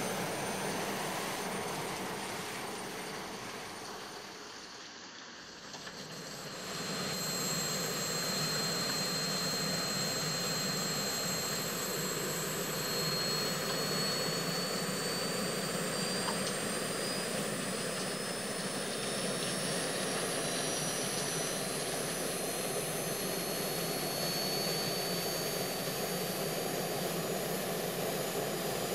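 Jet engine sound effect: a steady roar with a high whine that slowly rises in pitch. The sound fades briefly about four to six seconds in, then comes back.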